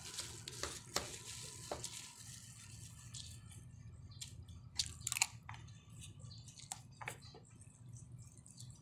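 Close-up sounds of a person eating noodles with a fork from a plastic bag: scattered short clicks and smacks, with a quick cluster of louder ones about five seconds in.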